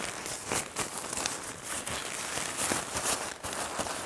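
PU-coated tent fly sheet fabric rustling and crinkling irregularly, with small crackles, as the front door of a tunnel tent is handled and rolled open.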